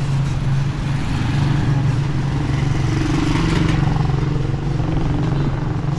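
Street traffic: a motor vehicle engine running close by with a steady hum, its pitch rising slightly about three seconds in.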